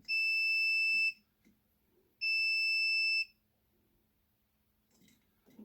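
Two long, high electronic beeps, each about a second long and about a second apart, from an electrical test meter used to check which wire carries 12-volt power.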